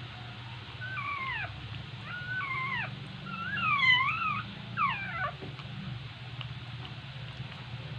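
Newborn puppies crying: four short, high, mewing squeals in a row, the third the longest and loudest, with pitch sweeping up and down.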